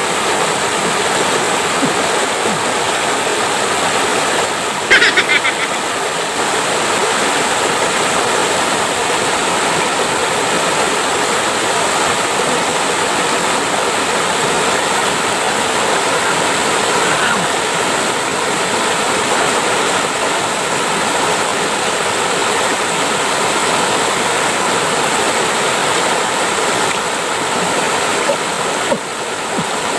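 Steady rush of flowing water, like a stream or small waterfall, with a brief sharp sound about five seconds in.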